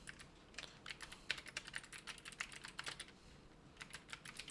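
Computer keyboard typing: quick, irregular runs of faint key clicks, with a short pause a little after three seconds.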